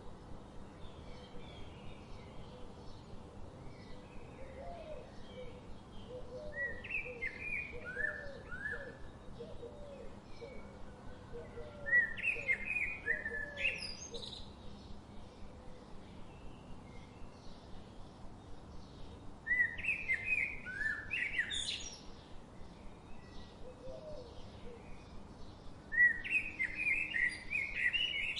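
Forest songbirds singing. A loud phrase of quick falling whistled notes comes three times, about 12, 20 and 26 seconds in, over steady faint chirping from other birds. A lower series of short repeated calls runs through the first half.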